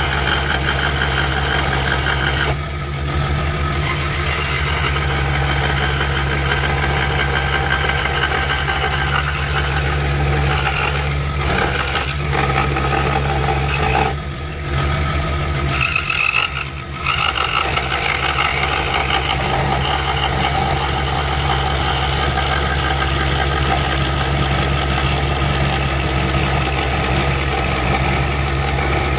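Woodstar SD 16 scroll saw running steadily, its motor humming and its reciprocating blade cutting along a curve in a plywood piece. The sound dips briefly three times, about 3, 14 and 17 seconds in.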